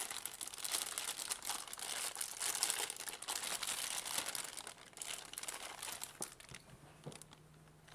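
Packaging crinkling and rustling as an AC adapter is worked out of its box, busy for about five seconds and then dying down.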